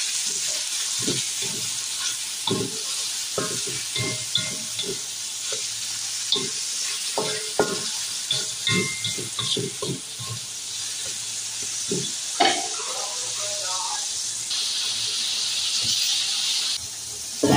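Chicken pieces and tomato sizzling in oil in a wok, with a spatula stirring and scraping against the pan in frequent short knocks for most of the time. Near the end the stirring stops and the sizzle grows louder for about two seconds, then drops.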